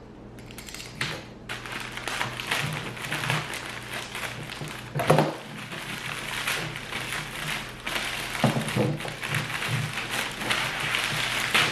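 Handling and unwrapping of motorcycle parts in their packaging: rustling and crinkling with small taps, and a single louder knock about five seconds in.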